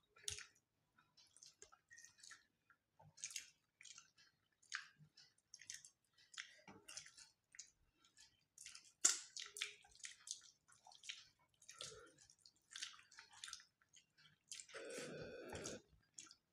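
Faint eating sounds: fingers mixing rice on a steel plate and chewing, a steady scatter of small clicks and wet smacks. About fifteen seconds in comes one brief pitched sound lasting about a second and a half.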